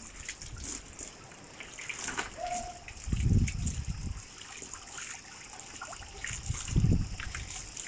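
Water trickling and splashing over a dog during a bath, louder twice, about three seconds and about seven seconds in.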